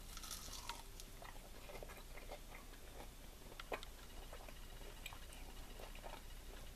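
Quiet chewing of a battered, fried plant-based wing made from potato, with scattered soft clicks of the mouth.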